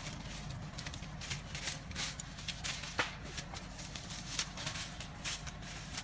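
Dry corn stalks and leaves crackling and rustling as someone walks through them on stubble. The sound is a run of irregular sharp snaps, with one louder snap about three seconds in, over a low steady hum.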